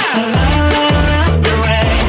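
Electronic pop song with a heavy bass whose notes slide down in pitch every second or so.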